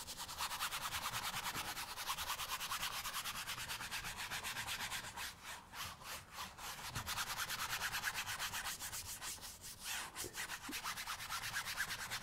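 A paintbrush scrubbing oil paint across a canvas in rapid back-and-forth strokes, blending the color smooth, with a few short pauses.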